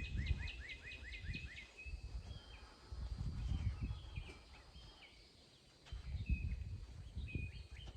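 A bird calling a quick series of repeated chirps, about seven a second, for the first second and a half, over irregular low rustling and bumps from hands working in soil and hay mulch.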